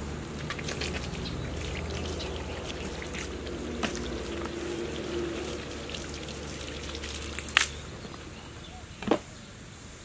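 Water from a garden hose pouring into and over rubber boots and splashing onto wet ground. A steady low hum runs under it and stops about three quarters of the way through, and there are a few sharp knocks, the loudest near the end.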